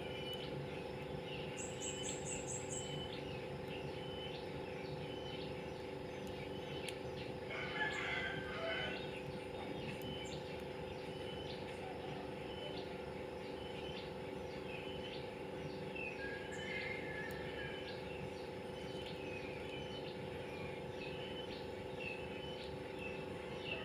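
Small birds chirping in short, scattered calls, over a faint steady hum, with a brief louder flurry about eight seconds in.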